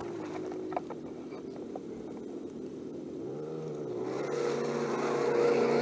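Simulated engine sound from 1:10-scale RC crawlers' onboard sound modules: a low, steady engine note that rises in pitch as the throttle opens about three seconds in, then settles and grows louder. A couple of small clicks come early.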